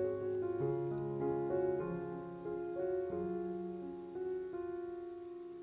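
Background piano music: a gentle melody of sustained notes changing every half second or so.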